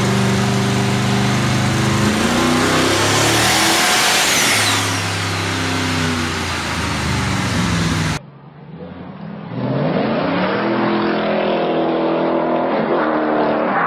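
Muscle car engine at high revs, loud, its pitch shifting up and down under a strong hiss. About eight seconds in, the sound cuts to another car whose engine revs up with a steeply rising pitch and keeps revving.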